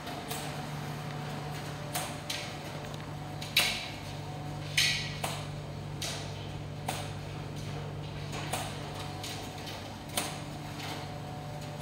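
ADC commercial tumble dryers running: a steady low hum with irregular clicks and knocks as the load turns in the drum, the two loudest knocks about three and a half and five seconds in.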